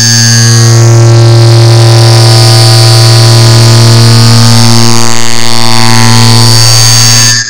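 Clock-ticking sound multiplied and sped up so far that the ticks have merged into a loud, distorted, steady buzzing drone: a low hum with a hiss over it. It cuts off abruptly near the end.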